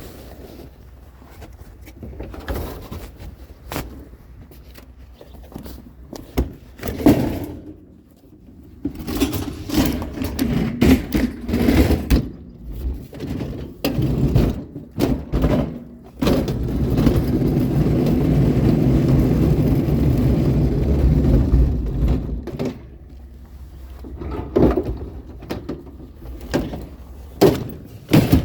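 Repeated knocks, thunks and scraping as a discarded dishwasher is handled and loaded for scrap, with a louder, steady scraping rumble for about five seconds midway.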